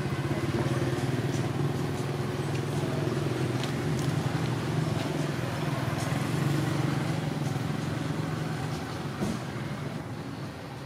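A motor engine running steadily, dropping away about nine seconds in.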